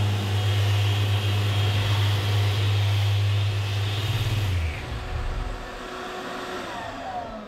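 Random orbital sander running steadily against a mahogany panel. It is switched off a bit over halfway through and spins down, its pitch falling near the end.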